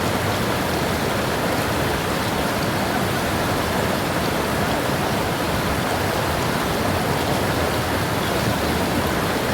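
Steady rushing noise of moving water and surf, even in level, with no separate wave crashes standing out.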